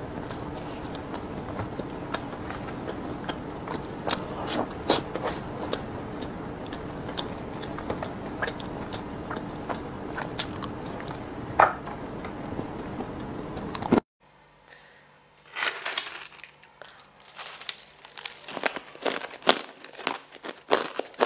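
Close-miked biting and chewing of chocolate-coated snacks, with sharp crunches over a low steady hum. About fourteen seconds in the sound cuts out, then comes louder crunching and crackling of crushed ice being bitten and chewed.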